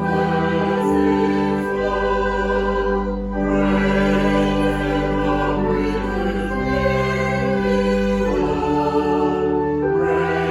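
Choral or sacred music with sustained chords that change every few seconds.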